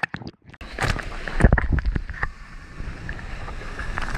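Water rushing and splashing as a surfer paddles into a small wave and rides it. The rush comes in about half a second in and carries on strongly, with low thumps of wind and water on the microphone.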